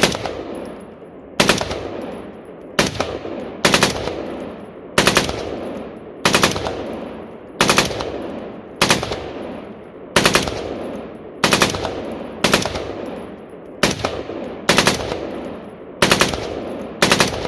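M16A4 5.56 mm rifle firing three-round bursts again and again, about one burst a second, each burst followed by a long echoing tail.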